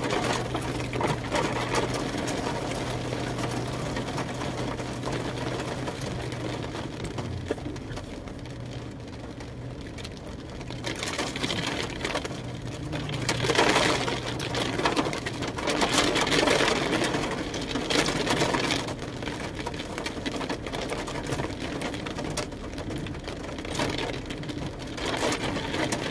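Steady mechanical hum of a car heard from inside the cabin, with louder bouts of rushing noise about halfway through.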